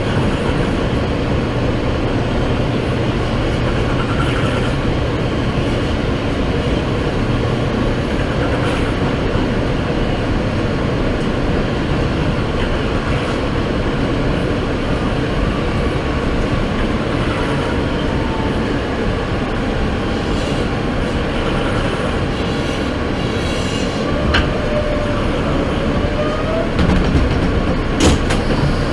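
New York City subway train running, a steady loud rumble of wheels on track heard from inside the car. Faint wheel squeal comes in past the middle, and a sharp click sounds near the end.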